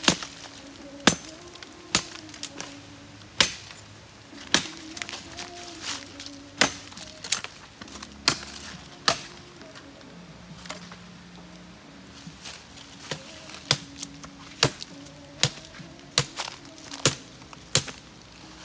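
Dry firewood sticks being broken up, a sharp crack roughly once a second with a short pause about halfway through.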